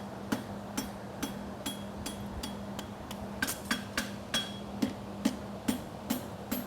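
Blacksmith's hammer striking a hot steel horseshoe bar on the anvil in a steady rhythm of about two to two and a half blows a second, each blow with a short metallic ring. This is the farrier forging the inside branch of a hind lateral support shoe. A steady low hum runs underneath.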